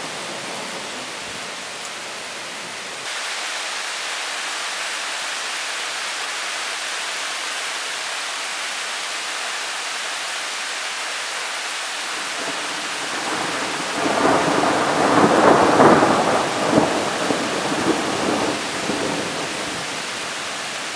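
Steady rain hissing, with a rolling rumble of thunder that builds about two-thirds of the way through, is loudest for a few seconds, then fades.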